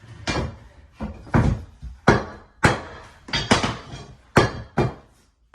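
A hammer striking a flooring pull bar to knock the last row of vinyl planks tight into their locking joints: a series of sharp knocks, about two a second and unevenly spaced.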